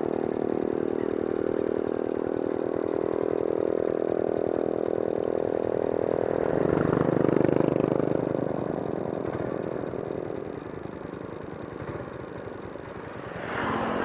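Motorcycle engine running steadily while riding, heard through a microphone mounted in the rider's helmet. It swells louder about seven seconds in, eases off for a few seconds, then picks up again near the end.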